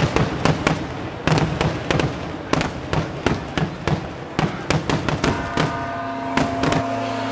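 Aerial fireworks bursting in a rapid, irregular series of sharp bangs, about three a second. Near the end the bangs stop and a church bell rings on steadily.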